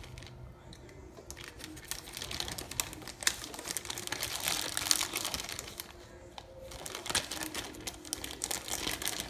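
Fat crackling and sizzling from hot burger patties on the wire rack of a Ninja Foodi, a dense run of small pops that builds about two seconds in, eases off around six seconds, then picks up again.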